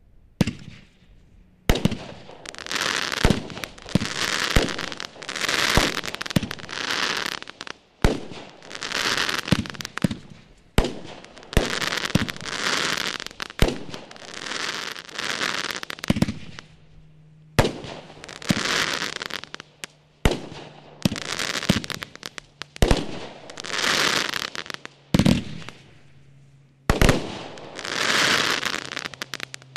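A TNT Fireworks Star Clusters multishot cake firing, about fifteen shots a second or two apart. Each shot is a sharp report followed by about a second of crackle as the stars break.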